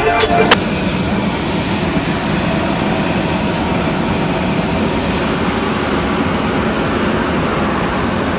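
Jet airliner noise: a steady rushing roar with a thin high-pitched whine that strengthens about halfway through.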